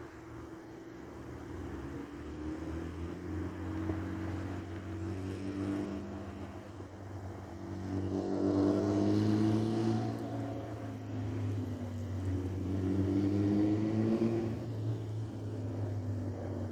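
Truck engine accelerating, its pitch rising and the sound swelling twice: once through the middle and again near the end.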